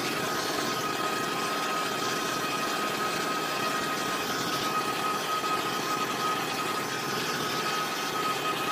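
Handheld hair dryer running steadily, a rush of blown air with a steady high whine over it. It is drying white paint laid over wet glue on a crankbait to speed up the crackle finish.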